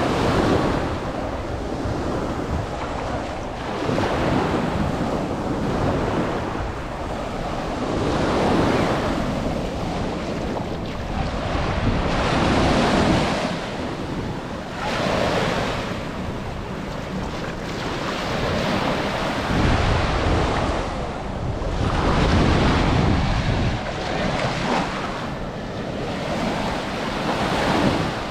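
Ocean surf breaking and washing on the beach, swelling and falling every few seconds, with wind buffeting the microphone.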